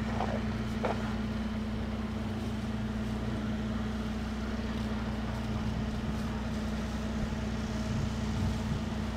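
Steady low mechanical hum, like an idling motor, that holds unchanged throughout.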